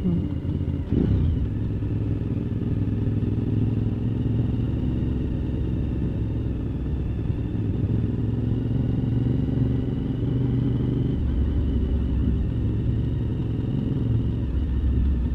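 Motorcycle engine, the rider's own Suzuki TL V-twin, running steadily at road speed with rushing air noise; the engine note drops lower about eleven seconds in.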